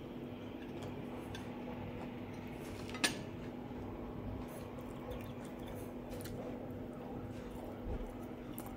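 Metal fork and knife clinking and scraping on a glass plate, with one sharp clink about three seconds in and a soft knock near the end, over a steady low hum.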